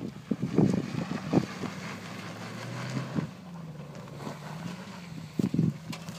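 Volkswagen Touareg's 4.2-litre V8 running at low revs as the SUV crawls over rutted dirt, its hum swelling a little about halfway through. Irregular thumps near the microphone, with wind noise.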